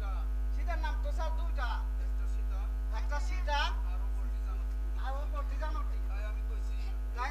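Steady electrical mains hum, with faint voices in short phrases over it several times.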